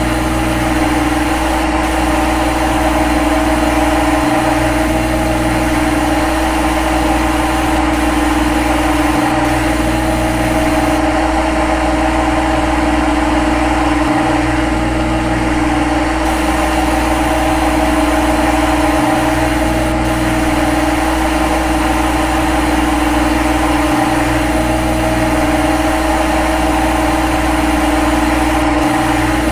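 A steady mechanical hum: a constant low drone with a held mid-pitched tone, unchanging throughout and with brief dips in the lowest drone about every five seconds.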